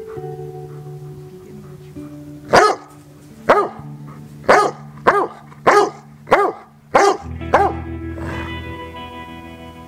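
A dog barks eight times in quick succession, starting about two and a half seconds in, over background music of sustained tones.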